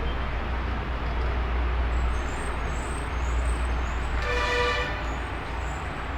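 Steady low traffic-like rumble, with one short horn toot lasting about half a second a little past the middle.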